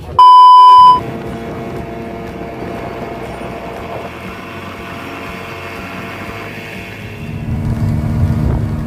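A loud steady electronic beep lasting under a second, then a speedboat's engine running steadily at cruising speed with wind and water rushing. The engine drone becomes louder and deeper near the end, heard from inside the boat's cabin.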